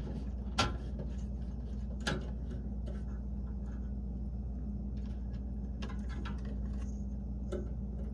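A steady low hum with a few light clicks and taps scattered over it, the sharpest about half a second and two seconds in.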